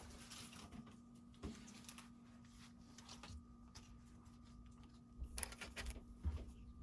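Faint handling of trading cards and their packaging: scattered soft clicks and short rustles, busier near the end, over a faint steady hum.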